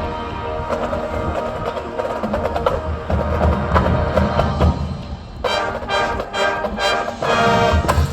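High school marching band playing, winds holding full chords over percussion, with a run of sharp percussion hits in the last few seconds.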